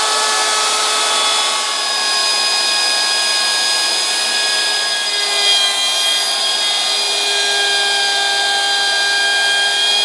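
Plunge router running and cutting into old hardwood, taking the joint down a little at a time. A steady high whine over cutting noise, its pitch shifting slightly a few times as the bit takes load.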